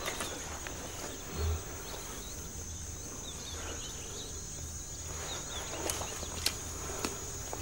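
Steady high-pitched insect trill, like crickets, with a few short bird chirps and several sharp clicks near the end.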